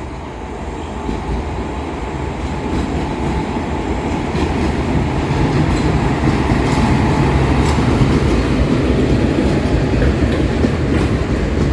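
Mangaluru–Chennai West Coast Superfast Express pulling into the station, its rumble growing steadily louder.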